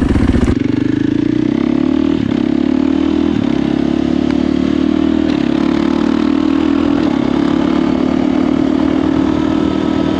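2023 KTM 450 XCF's single-cylinder four-stroke engine: it leaves idle about half a second in as the bike pulls away, then runs at a steady, slightly rising pitch while riding, with two brief dips about two and three seconds in.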